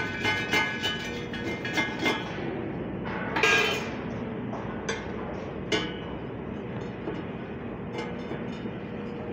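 Steel parts being handled: scattered metal knocks and clinks, with one louder, ringing clank about three and a half seconds in, over a steady machinery hum in the shop.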